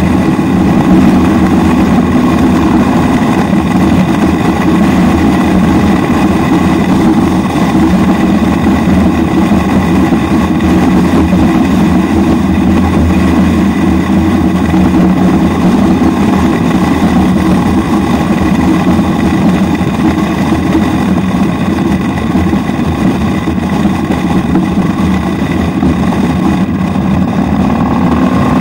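Yamaha Midnight Star 1300's V-twin engine running steadily as the motorcycle cruises at an even speed, heard from the rider's position.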